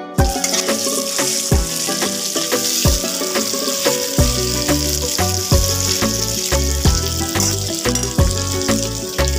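Potato wedges sizzling steadily as they fry in hot oil in a pan, over background music with a steady beat that brings in a bass line about four seconds in.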